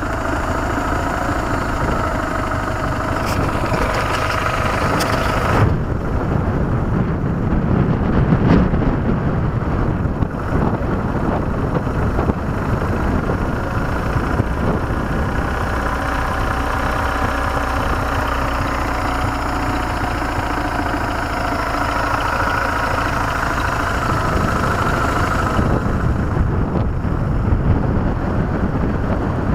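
BMW R1150GS Adventure's boxer twin engine running under way, mixed with wind rushing over the microphone. The high hiss of the wind drops noticeably about six seconds in.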